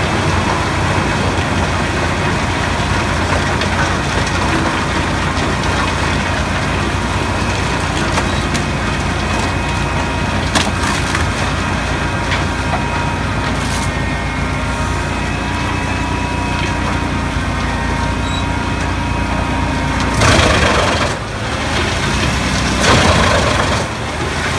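Shinyoung Model 800 tractor-driven wood chipper running steadily with the tractor engine hum, and a few faint cracks midway. It chews through wood in two louder bursts in the last few seconds.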